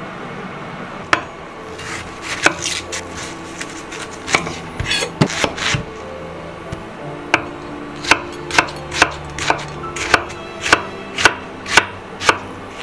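Kitchen knife cutting a red onion on a wooden cutting board. The blade strikes the board in irregular cuts at first, then in steady chops about twice a second over the last few seconds.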